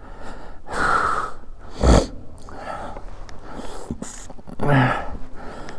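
A man's breath noises close to the microphone, with a single sharp thump about two seconds in.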